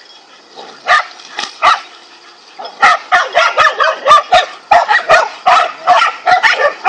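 A pack of dogs barking at a king cobra they have cornered: three barks about a second in, then a fast, continuous run of barks, about four a second.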